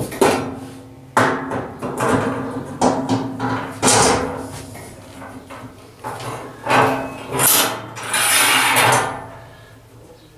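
Stainless steel tubular grill rack being fitted into the sockets of a steel fire-pit grill: a series of sharp metal knocks and clanks, with a longer scraping clatter about eight seconds in.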